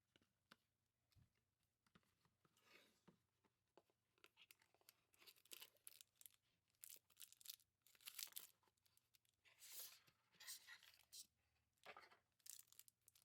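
Packaging being torn open and rustled by hand, faint, with irregular crackles that grow busier about four seconds in.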